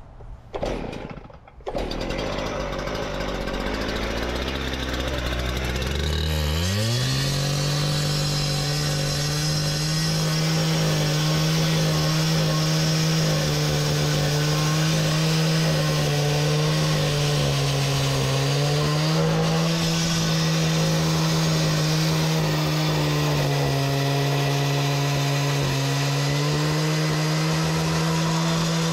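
Gas-powered two-stroke cut-off saw comes on about two seconds in and runs at a low idle. At about six seconds it revs up to full speed and runs steadily, cutting through concrete, with small dips in pitch as the blade takes load.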